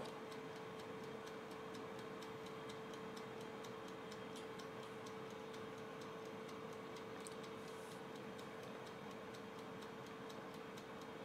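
The mechanical countdown timer of a Daewoo halogen air fryer ticking quickly and evenly, with a steady hum from the running air fryer beneath it.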